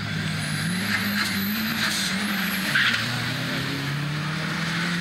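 A street car launching off the drag strip start line and accelerating away down the track. The engine's pitch climbs, drops about two seconds in, then climbs again.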